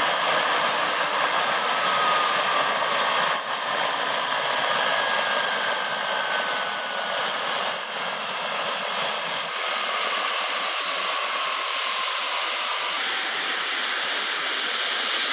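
Small model gas turbine of a 1/5-scale Bell 412 radio-controlled helicopter, with its main and tail rotors turning: a high-pitched whine over a steady hiss. The whine slowly falls in pitch, then drops more steeply about ten seconds in as the turbine spools down after touchdown.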